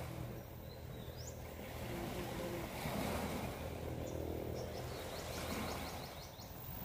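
Small waves washing and breaking on a rocky, pebbly shore in a steady wash.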